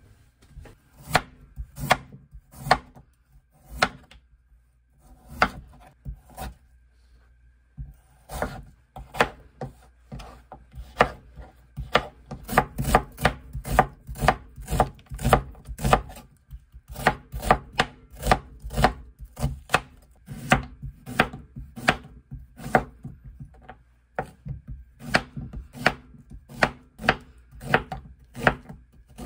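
Kitchen knife chopping onion and then Korean zucchini on a wooden cutting board: sharp knocks of the blade on the board, in runs of quick strokes with a couple of short pauses.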